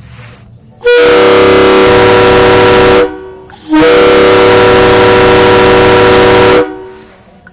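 Wolo Cannonball Express three-trumpet air train horn blown on compressed air from a 30-gallon tank at 80 psi: two blasts, about two and three seconds long with a short gap between, each a steady chord. It has the tone of a K3 locomotive horn and is very loud, and the sound is distorted from the microphone being too close.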